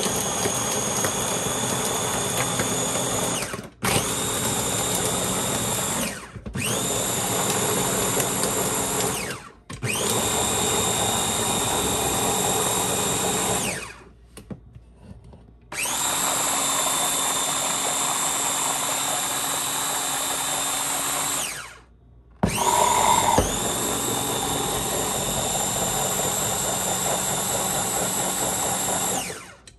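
Electric mini food chopper's motor running in pulses as chickpeas are pureed into hummus. It gives a steady whine that spins up each time it is pressed and stops briefly about five times.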